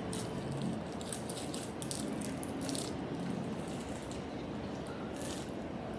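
Clear-glue slime, a little over-activated, being squished and kneaded by hand, with many short wet clicks and pops.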